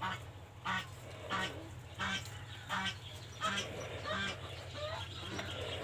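A bird calling over and over, one short honking call about every two-thirds of a second, over a steady low hum.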